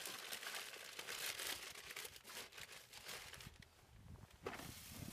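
Crumpled newspaper packing rustling and crinkling as hands dig through it, a continuous run of soft crackles.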